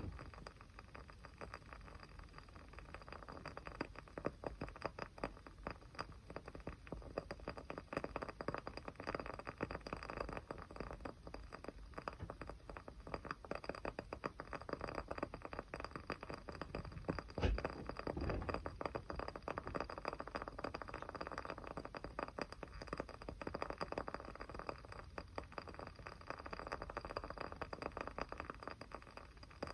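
Small fire crackling steadily with a dense stream of fine pops, and one louder pop a little past halfway.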